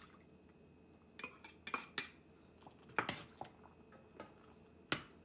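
Metal slotted spoon stirring gravy in a steel pressure-cooker pan, clinking and scraping against the pan in scattered strokes, the loudest about three seconds in and near the end.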